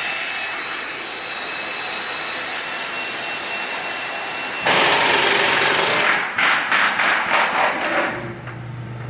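Pneumatic air tool running: a steady hissing whine for about five seconds, then a louder spell, then a string of short bursts, about four a second, before it stops near the end.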